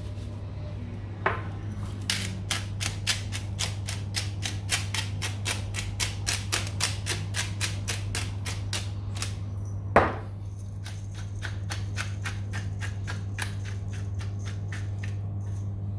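Rapid, even clicking, about four or five clicks a second for several seconds, broken by one louder knock and then resuming, over a steady low hum.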